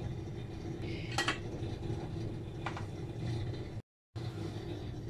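Metal clinking a few times against an aluminium saucepan of simmering milk tea, over a steady low hum. The sound cuts out completely for a moment about four seconds in.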